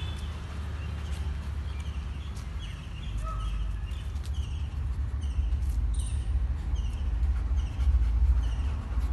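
A small bird chirping repeatedly in short, falling high notes, about two a second, over a steady low rumble on the phone microphone that grows louder about three seconds in.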